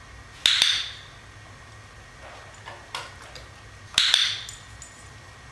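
Hand-held dog-training clicker clicked twice, about three and a half seconds apart, each a sharp double click-clack, with a few fainter ticks in between. Each click is followed by a treat: the clicker is being charged so that the dog learns the click means a reward is coming.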